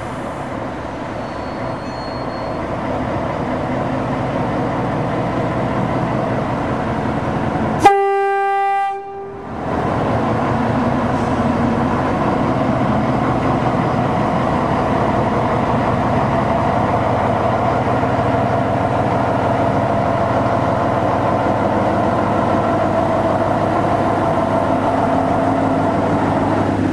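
Peckett diesel shunting locomotive 'Austins No. 1' running as it approaches, its engine steadily growing louder. About eight seconds in it gives one short, loud horn blast. It then passes close by with its wagons, engine running steadily.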